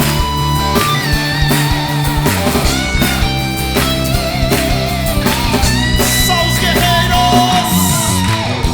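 Band playing an instrumental passage of a rock-style worship song: an electric guitar carries the lead melody with vibrato over drums and bass.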